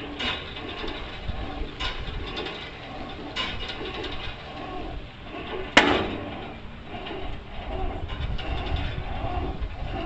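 Outdoor park fitness machine knocking as it is worked, a sharp clack roughly every second and a half, the loudest one about six seconds in.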